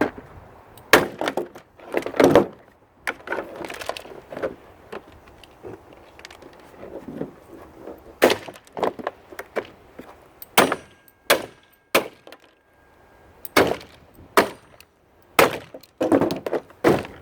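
Hard plastic housing of a shop vac/pressure washer combo cracking and snapping as it is pried and broken apart, in many sharp, irregular cracks.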